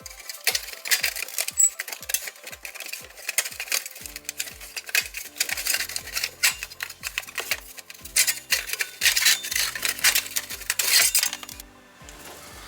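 Metallic clinking and rattling of hand tools and fasteners being worked, which stops near the end, over background music with a steady beat.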